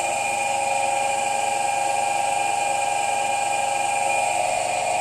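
Induction motor running in resonance on a parallel capacitor and spinning a generator under load: a steady machine whine with a hum beneath, holding even pitch and level.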